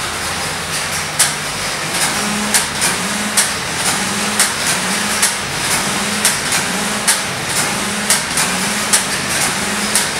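Computerized flat knitting machine running while it knits a shoe upper. The carriage travels back and forth across the needle bed with a motor hum that changes pitch with each pass, and a sharp click sounds about twice a second from about a second in.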